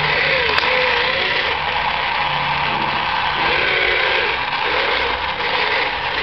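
Radio-controlled toy wheeled excavator working its boom and bucket in sand. Its motors and gears whir steadily, with a whine that rises and falls in pitch several times as the arm moves.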